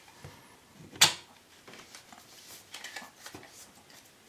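Hands working the cylinder parts of an Action Army Striker airsoft rifle. There is one sharp metallic-plastic click about a second in, with small clicks and rubbing of the parts before and after.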